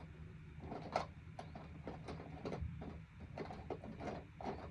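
A man hiccuping once, a short sharp hic about a second in, with a few fainter small clicks around it; he is deep in a hiccup bout that has gone on for minutes.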